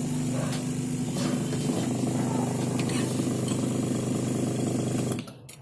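Small electric fan motor running steadily with a low hum and a rush of air, cutting off suddenly near the end.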